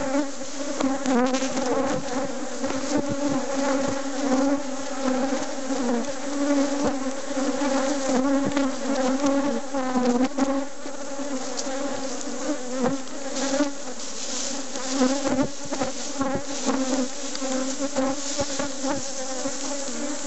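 Honeybees from open hives buzzing in a steady, continuous hum, with scattered short knocks throughout.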